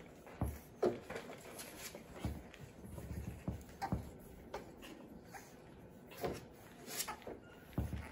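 French bulldog puppies playing among toys: irregular light knocks, scuffs and rustles from paws and toys on the pads, with the odd small puppy noise.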